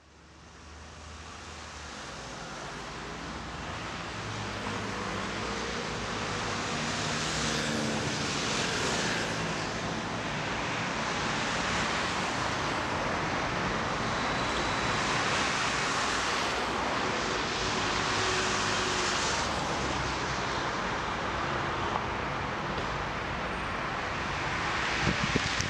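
Night road traffic fading in from silence: a steady rush of tyres and engines, with vehicles swelling past every few seconds. A couple of short sharp clicks near the end.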